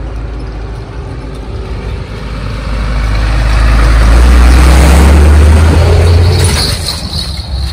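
A UD Trucks diesel cargo truck drives up a brick-paved road and passes close by. Its engine drone and tyre noise swell to loudest about four to six seconds in, then fall away, with a hiss near the end.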